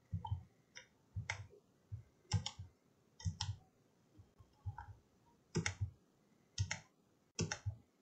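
Computer mouse button clicking as sketch lines are trimmed in CAD software: short, sharp clicks arriving unevenly, about nine in all.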